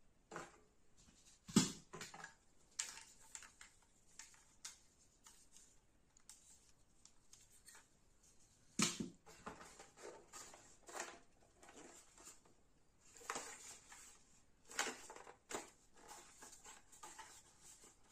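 Hard plastic toy MP40 BB gun being handled: scattered clicks and knocks as it is moved, lifted and set against the table, with louder knocks about a second and a half in and again around nine seconds.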